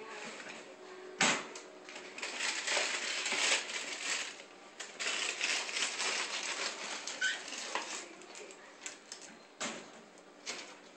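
A pet bird rattling and tossing its bath tub against its cage: a sharp clack about a second in, then several seconds of clattering and rattling, and another clack near the end.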